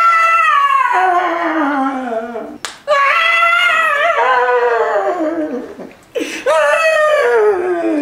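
An adult voice wailing like a crying baby: three long cries, each starting high and falling in pitch, with a short sharp click between the first two.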